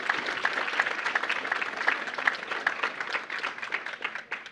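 Audience applauding: many hands clapping quickly together, thinning out and stopping near the end.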